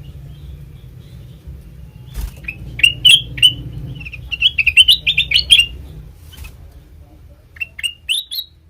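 Kutilang emas (a bulbul) calling: a few sharp chirps about three seconds in, a quick run of rapid notes in the middle, and a last few chirps near the end. A low hum lies underneath through the first two thirds.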